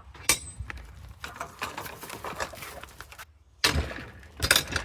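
Footsteps and rustling while walking with the camera, irregular scuffs and crackles with two louder scuffs near the end.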